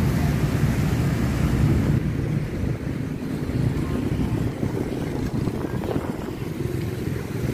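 Steady low rumble of road traffic, motorbikes passing on a wet road, mixed with wind on the microphone; louder for the first two seconds, then a little quieter.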